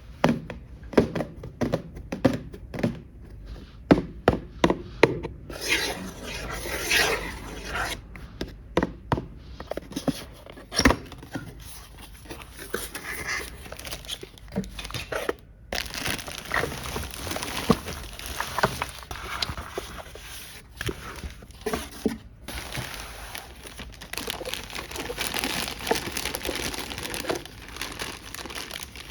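Toy packaging being handled up close: a quick run of light clicks and taps, then packaging crinkling and rustling with occasional knocks as pieces are unpacked.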